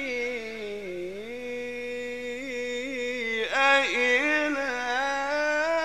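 A man's voice in chanted Quran recitation (tajwid), drawing out one long ornamented note that dips in pitch about a second in and then holds steady. After a brief break about three and a half seconds in, he starts another long held note, slightly higher.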